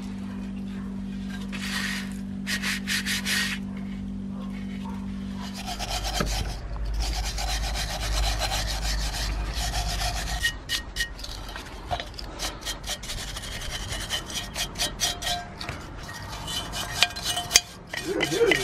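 Hand scraping and rubbing strokes on a rusty cast-iron charcoal iron and a wooden piece as caked mud is cleaned out of it, in quick repeated strokes, several a second, through the second half. A steady low hum underlies the first few seconds.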